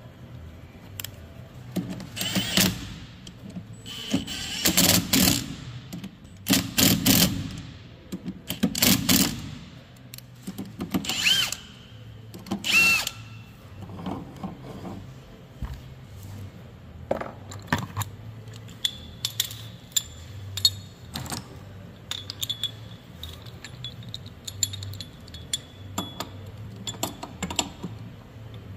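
A power tool running in short bursts, about six times in the first half, spinning the nut off the hub of a Thermo King condenser fan. In the second half there are scattered metal clicks and clinks as a gear puller is fitted to the fan hub.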